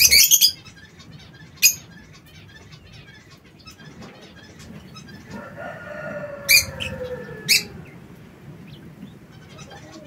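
Aviary birds calling: a burst of shrill, piercing chirps at the start, another just under two seconds in, and two more in the second half. A softer, drawn-out falling call sounds in the middle, over faint ticking of beaks pecking at seed and leaves.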